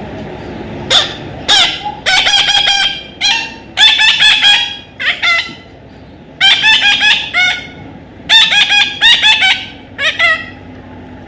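A parrot calling loudly: short, harsh notes repeated quickly in a run of bursts, with brief gaps between the bursts.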